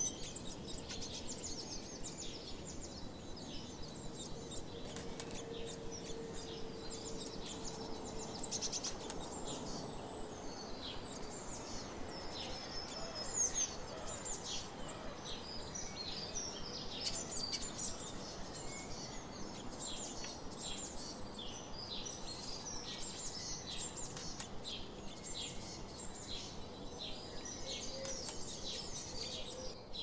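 Small songbirds chirping and twittering: a dense, continuous run of short, high calls, with a couple of louder calls about halfway through.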